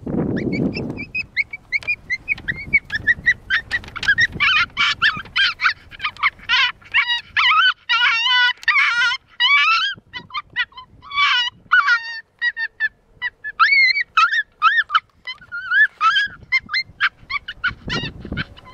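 FoxPro CS24C electronic predator caller playing a coyote pup distress recording through its speaker: a long run of short, high yelps and whines, starting about a second in, some in quick runs, thinning out near the end.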